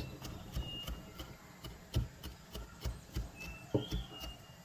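Knife chopping on a cutting board: a run of irregular knocks, with a few faint bird chirps.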